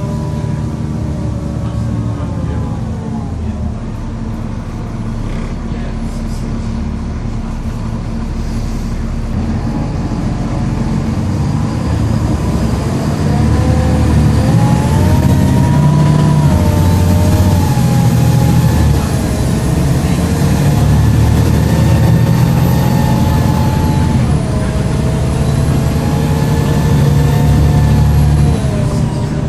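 Volvo B7LA bus's turbocharged diesel engine and ZF automatic gearbox under way. The whine falls away as the bus slows in the first few seconds. It then builds again as the bus pulls away about halfway in, with a high, whiny turbo whistle rising, dipping once at a gear change and dropping off near the end as the driver lifts off.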